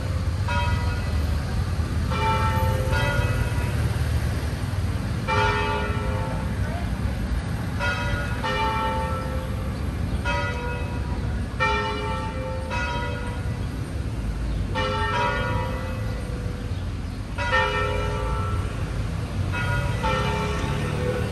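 Church bells ringing: a long series of ringing strikes, often two close together about half a second apart, over a steady low rumble of street traffic.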